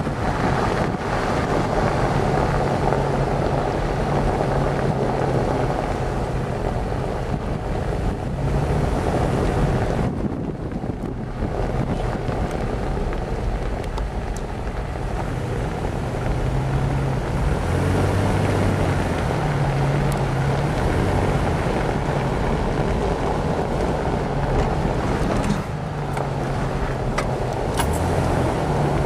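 Vehicle engine running at speed, its low note shifting in pitch now and then, under heavy wind noise buffeting the microphone.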